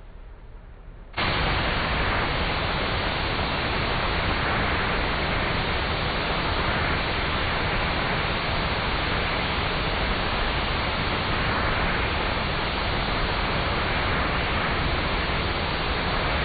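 Loud, steady hiss-like noise with no tone in it, starting suddenly about a second in and holding even throughout.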